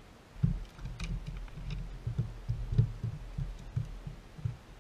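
Irregular dull thumps, a few a second, with a few light clicks, starting about half a second in: a landed bass flopping on the carpeted deck of a bass boat.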